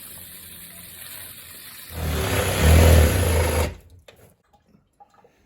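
A power tool runs: a steady hiss for about two seconds, then much louder for nearly two seconds, cutting off abruptly about four seconds in.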